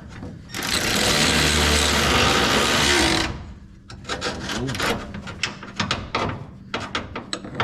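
Impact wrench running for nearly three seconds as it drives down an exhaust bracket bolt, followed by a string of short sharp clicks and knocks.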